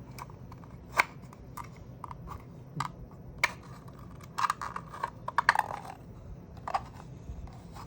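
Irregular clicks and light rattles of plastic magazine parts being handled and pushed with a tool: single sharp clicks about a second in and near the middle, a quick flurry of clicks a little past halfway, and one more near the end.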